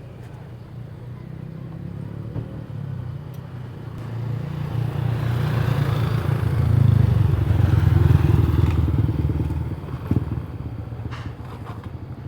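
A motor vehicle's engine drawing near, passing close by loudest after about seven seconds, then fading away. A few light clicks come near the end.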